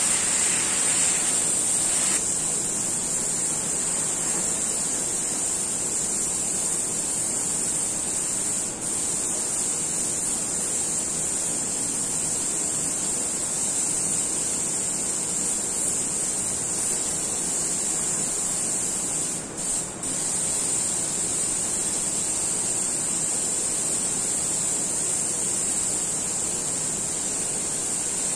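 Airbrush spraying paint with a steady, high hiss of compressed air. The hiss dips briefly about nine seconds in and twice in quick succession around twenty seconds in, as the trigger is eased off.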